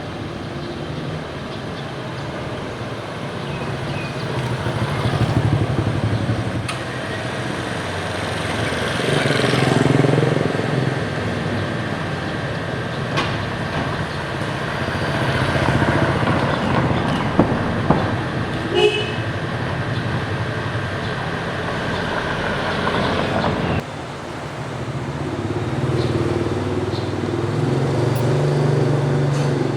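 Busy street traffic: motorcycles and cars passing one after another, the noise swelling and fading as each goes by.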